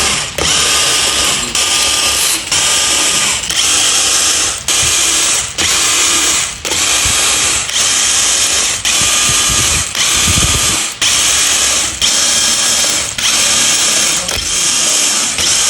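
Power tool running in about fifteen short bursts, roughly one a second, with brief pauses between them, during an engine teardown.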